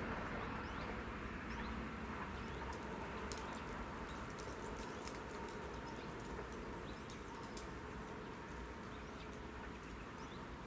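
Passing train's noise fading away into the distance, with birds chirping.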